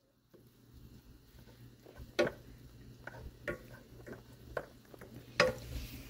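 Faint kitchen clatter: scattered light clicks and taps over a low steady hum, with two louder knocks about two and five seconds in.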